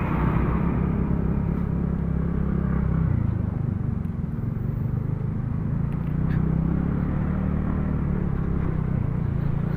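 Motor scooter being ridden along a road: a steady, low engine hum with road noise.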